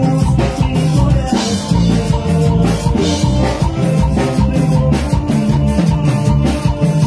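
Band music played loud, with a drum kit keeping a steady beat over a bass line and held instrumental notes.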